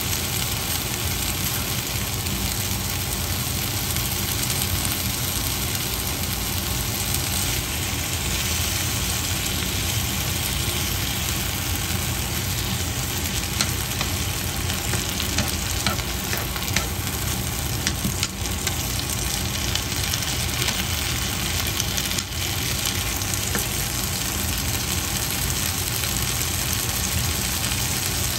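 Vegetables sizzling steadily in a frying pan, over a steady low hum, with a few light clicks from about halfway through.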